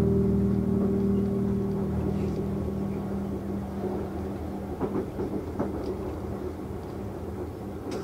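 Train running along the rails: a steady rumble, with a few sharp clicks of the wheels over the track about five seconds in.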